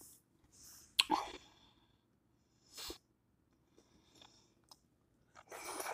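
Quiet mouth and eating sounds from a person eating sauce-covered seafood by hand. A sharp click with a brief sound from the mouth comes about a second in, then a few short, soft hissy noises.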